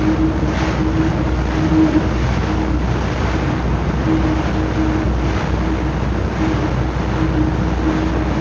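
Wake of a World War II aircraft carrier heard from the quarter-deck: a steady rush of churning water over a low rumble, with a hum that fades in and out and a few brief swells of wash. It is an old recording from a 78 rpm disc, with its treble cut off.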